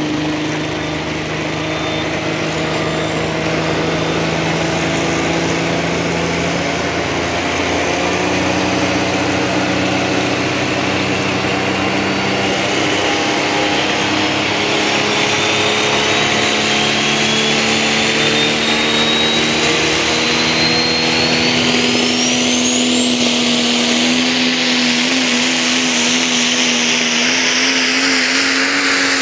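Super stock diesel pulling truck's engine running loud at the start line with its turbochargers building boost: a thin whistle climbs slowly, then shoots up in pitch past the middle, and the engine note rises near the end as the truck pulls away.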